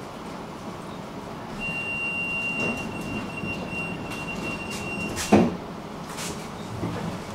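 Tram running noise with a steady high whine lasting a few seconds, then a single sharp clack about five seconds in.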